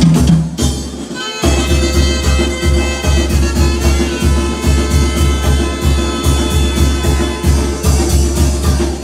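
Mexican dance music with a tambora bass drum beating a steady, strong pulse under held saxophone lines. The music drops out briefly about a second in, then the full sound comes back.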